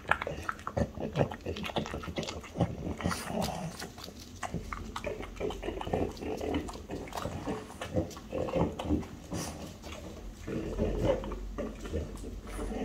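French bulldog eating chicken tenderloin from a plate: irregular wet chewing and licking with noisy snuffling through its short nose, then sniffing along the carpet for scraps.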